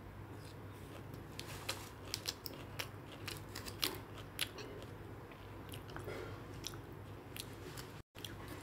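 Black plastic spoon scooping and stirring fried rice in an aluminium foil tray: a run of sharp clicks and crinkly scrapes starting about a second and a half in, a few more later, over a steady low hum.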